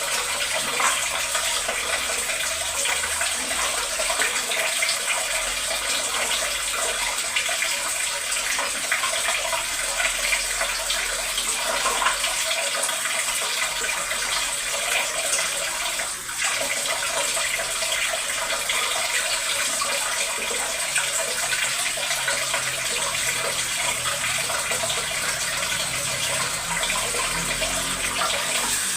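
Water running steadily from a kitchen sink tap, with a brief dip in the flow about sixteen seconds in.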